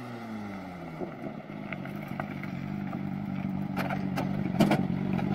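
Suzuki GSX-R750 inline-four engine in an open-wheel club racer, falling in pitch as it comes off the throttle and then idling steadily, growing louder as the car pulls in close. A few sharp clacks sound near the end.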